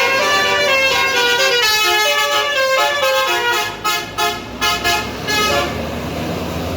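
Bus 'telolet basuri' roof air horns playing a fast stepping melody in several tones at once. Near the end come a few short separate toots, which stop about five and a half seconds in, leaving a low rumble.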